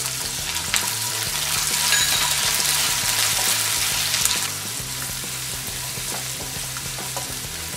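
Chopped onions sizzling in hot oil with garlic in a kadhai, stirred with a wooden spatula. The sizzle is loudest for the first four or five seconds after the onions go in, then settles to a lower, steady frying hiss.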